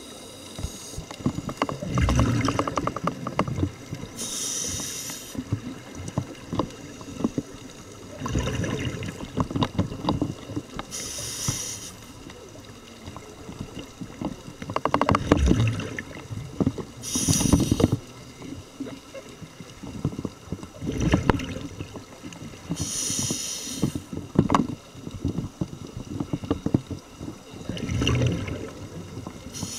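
Scuba regulator breathing heard underwater: a short high hiss on each inhale, then a louder rumbling, bubbling exhale, repeating about every six seconds for about five breaths.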